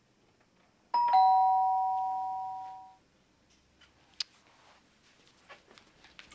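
Two-tone ding-dong doorbell chime rings once, a higher note then a lower one, fading away over about two seconds. A sharp click and a few faint taps follow.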